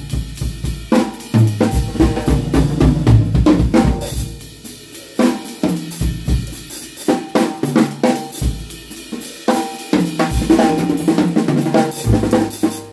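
Drum kit played with sticks in a busy groove: snare, bass drum, hi-hat and cymbal strikes, with the rattle of a stick-mounted steel-jangle tambourine and held low notes stepping in pitch underneath. The playing stops right at the end.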